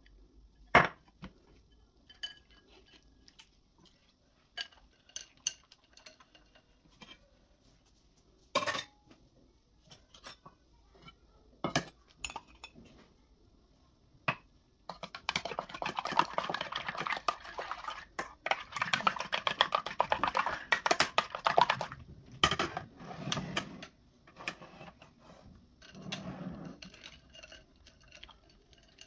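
Kitchen utensils and dishes clinking and knocking as food is prepared. Separate knocks come at first, then about seven seconds of fast, continuous clinking and scraping, then a few more knocks.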